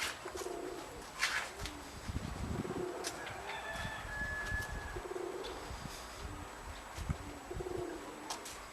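Domestic pigeons cooing, soft low calls repeating every second or so, with gusty wind rumbling on the microphone.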